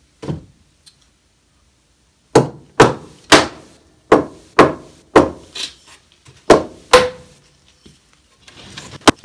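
A series of about nine sharp wooden knocks on a glued-up board panel, coming in uneven pairs after a single knock. One blow near the middle rings briefly.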